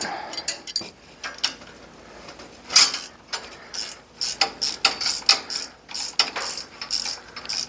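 Ratchet wrench clicking in short repeated strokes as it backs out a bolt, the strokes settling into a steady rhythm of two or three a second about four seconds in.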